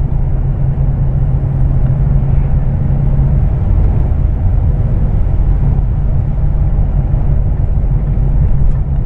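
Scania truck's diesel engine droning inside the cab while driving on a wet highway, with a steady low rumble and road noise; a low hum in the drone drops away about three and a half seconds in.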